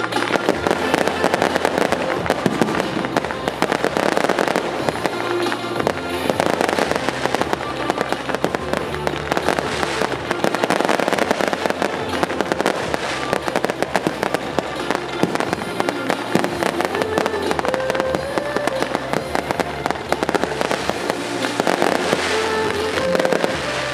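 Fireworks crackling densely and without pause, swelling in several waves, over show music with held tones.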